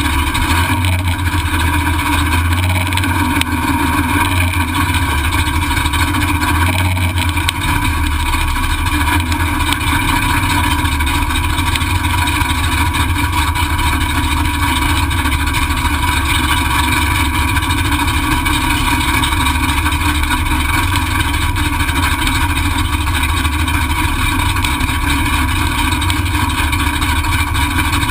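383 stroker small-block V8 of a drag car running steadily at idle, loud and unchanging, heard from inside the stripped-out cabin.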